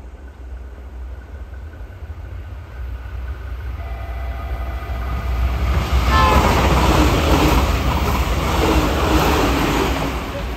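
A JR Kyushu 885-series electric limited express train approaches and passes at speed. The sound grows steadily louder with a faint steady whine. It is loudest from about six seconds in, as the carriages run past with a fast clatter of wheels on the rails, and eases near the end.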